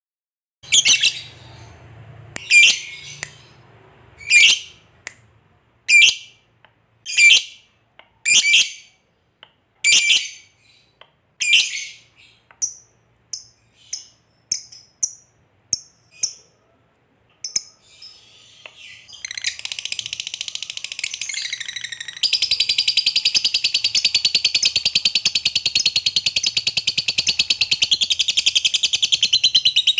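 Lovebird calling: sharp, high single chirps about every second and a half, then quicker, fainter short chirps, then from about two-thirds of the way in a long unbroken trilling chatter, the 'ngekek panjang' that keepers prize, which grows louder and holds steady.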